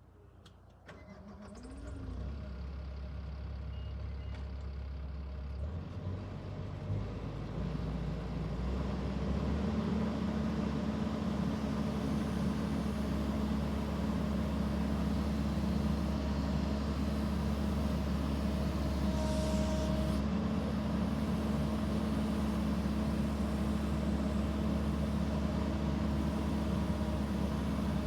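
Mitsubishi 92 hp diesel engine of a Kobelco SK140SR excavator starting: a brief crank, then it catches about two seconds in and runs. Around nine seconds in it steps up to a higher, steady running speed.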